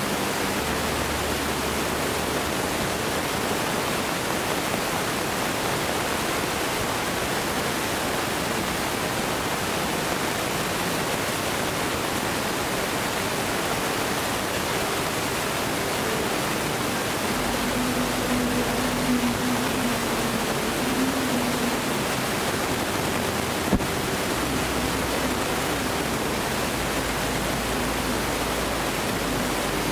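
Steady, even hiss with no distinct events, and a single faint click about 24 seconds in.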